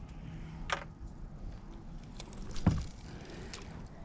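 Plastic kayak being paddled: the paddle stirs the water and clicks and rattles against the boat, with one knock, the loudest sound, a little under three seconds in.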